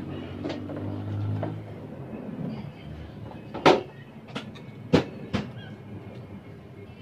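Handling noise during amplifier repair: the metal amplifier is lifted and set down on a tiled ledge with a sharp knock a few seconds in. A few more sharp clicks and taps follow as a screwdriver works at a speaker's terminals, over a low steady hum.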